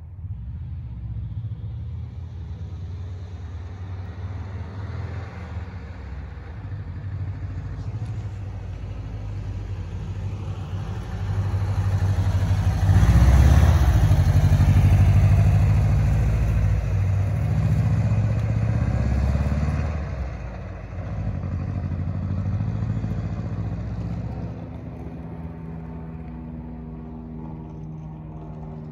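A camper's engine running at idle, raised in speed for several seconds about halfway through, then given a second shorter rise before settling back to a steady idle near the end.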